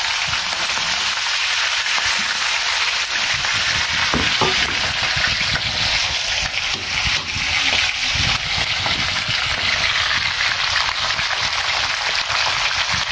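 Whole fish deep-frying in hot oil: a steady, dense sizzling crackle, with a couple of soft knocks near the middle.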